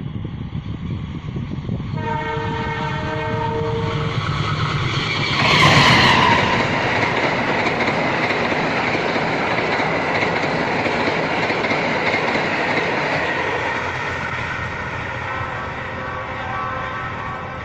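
Passenger train sounding its horn for about two seconds, then passing close by with a sudden loud rush and a steady rumble of wheels on the rails.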